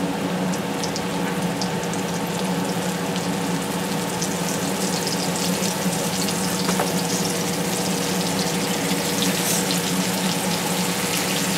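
Floured pork steaks frying in hot grease in a cast-iron skillet: a steady crackling sizzle full of small pops, over a steady low hum. The grease is hotter than the cook wanted.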